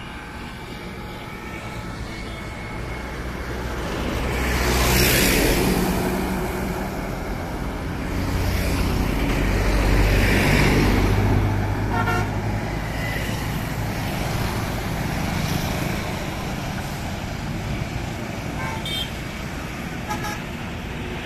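Highway traffic passing close by, with vehicles going past one after another and two loud passes a few seconds apart. Short horn beeps sound about halfway through and twice near the end.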